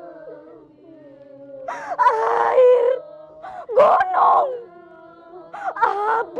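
A woman crying out in anguish: three loud wailing, sobbing outbursts whose pitch slides up and down, with quieter whimpering between them.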